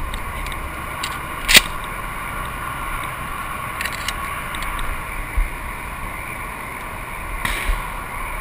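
Steady background hum of traffic on a nearby highway, with a single sharp loud crack about one and a half seconds in and a few faint clicks.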